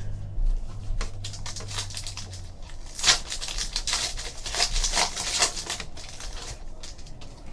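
Trading cards being handled: rapid crinkling and clicking, busiest in the middle few seconds.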